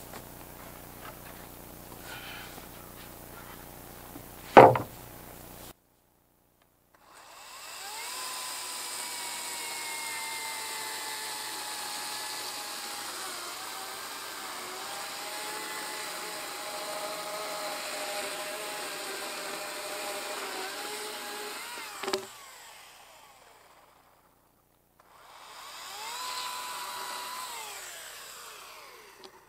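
A sharp knock about four and a half seconds in. Then a Ryobi chainsaw runs up and cuts through a cedar slab for about fifteen seconds, its whine sagging slightly in pitch under load before it winds down. Near the end it runs again briefly.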